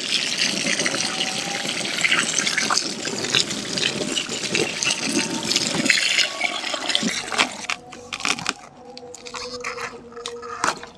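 A stream of water pouring and splashing over a whole plucked chicken as it is rinsed, a steady rushing that stops about seven seconds in. After it, scattered light clicks and handling noises.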